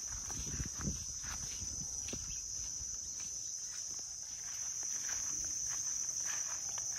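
A steady, high-pitched insect drone, with the soft footsteps and rustle of someone walking through grass.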